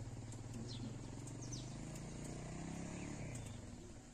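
Faint outdoor background: a low steady hum, with a few short, high, falling bird chirps.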